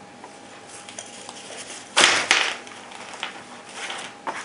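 Hands handling unboxed binocular accessories: light rustling and clicks, with one short, sharp rustle-and-clack about two seconds in.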